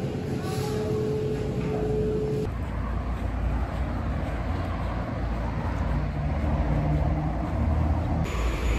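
Background noise of a supermarket aisle with a steady hum. About two and a half seconds in it cuts abruptly to outdoor noise with a low rumble.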